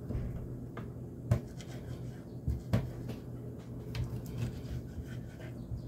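Kitchen knife slicing raw chicken on a plastic cutting board, the blade knocking against the board a few times with sharp taps, over a low steady hum.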